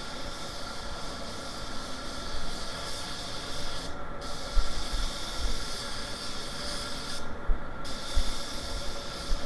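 Compressed-air paint spray gun (suction-feed, cup below) hissing steadily as it sprays paint onto a car panel. The hiss cuts out briefly about four seconds in and again for about half a second later on, as the trigger is let go between passes.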